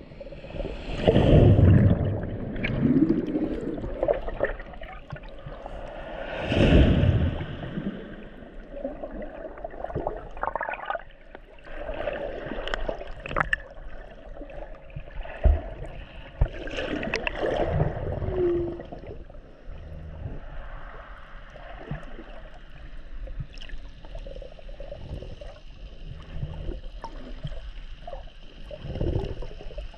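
Water heard from underwater in shallow sea: muffled sloshing and gurgling, with heavier surges of water rushing past every several seconds and scattered small clicks.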